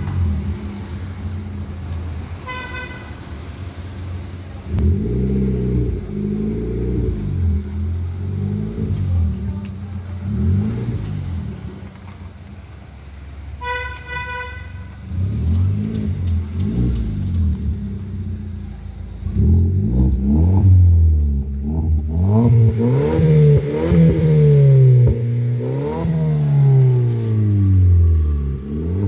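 Maruti Suzuki Ciaz Hybrid's engine idling and being revved again and again through an aftermarket HKS Hyper Power exhaust, the pitch rising and falling with each rev. The revs come harder and closer together in the last third. A short beep sounds twice, once near the start and once about halfway.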